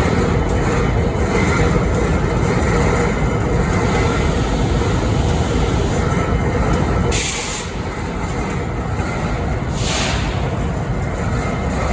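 BNSF 5910 diesel locomotive idling with a steady low rumble, and two short hissing bursts, about seven and ten seconds in. The idle carries a noise that is taken as strange, its cause not named.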